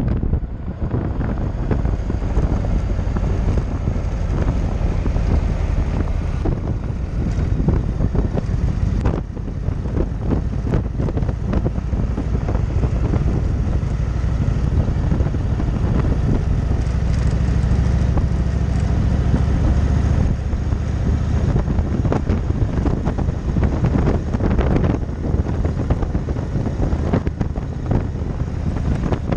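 Cruiser motorcycle under way on the road: a steady low engine note mixed with wind buffeting the microphone in frequent gusts.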